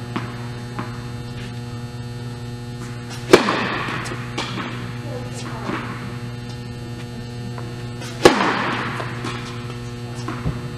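Tennis racket strikes on the ball: a loud, echoing smack about three seconds in as the serve is hit, and another about five seconds later on the next shot. There are fainter knocks between them, all over a steady hum from the indoor hall.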